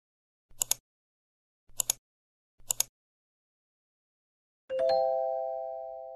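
Intro sound effects for a loading bar: three short double clicks about a second apart, then a quick three-note chime, like a doorbell, that rings on and fades out as the bar reads complete.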